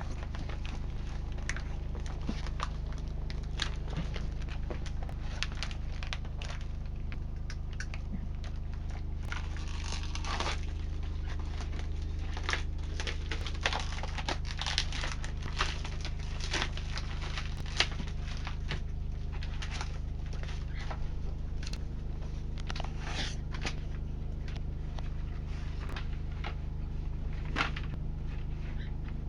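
Packaging being opened and handled: plastic and paper crinkling and tearing, with scattered clicks and knocks, over a steady low hum.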